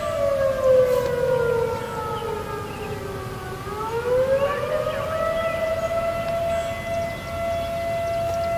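Federal 2001-130 outdoor warning siren sounding with its pitch sagging: the tone slides down for about three seconds, climbs back up around the fourth second, and then holds steady. The uneven pitch fits the siren failure named for this test.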